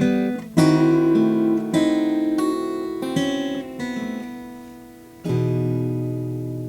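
Instrumental close of a song on acoustic guitar: a run of plucked and strummed chords, then a last chord struck about five seconds in that rings out and slowly fades.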